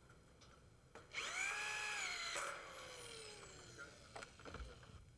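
Cordless drill driving a screw into steel tube framing: the motor spins up suddenly about a second in, runs steadily for just over a second, then is let go and winds down with a falling whine. A few light clicks and a low thump follow near the end.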